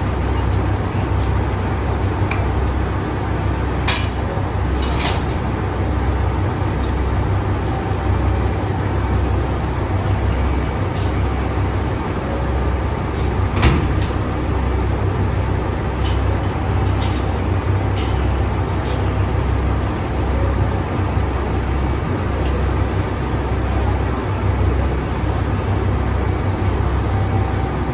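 Diesel express railcars idling with a steady low rumble, while several sharp metallic clanks ring out from coupler work as the coupled trains are uncoupled, the loudest about fourteen seconds in.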